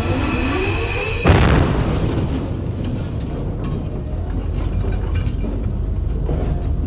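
A heavy steel plate dropped from a crane slams into a B-52 airframe with a loud crash about a second in, and the sound rings on as it dies away. A short rising whine comes just before the strike, and scattered metal clatters follow it over a steady low rumble.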